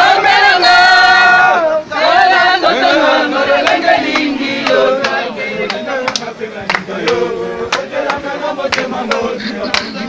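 A crowd singing loudly together in chorus, with long held notes at first, then a moving melody. From about four seconds in, short sharp claps or knocks come through about twice a second.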